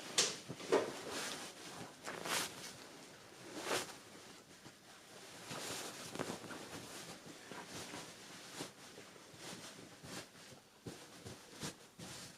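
Irregular household handling noises: rustling with occasional light knocks and clicks as things are moved about.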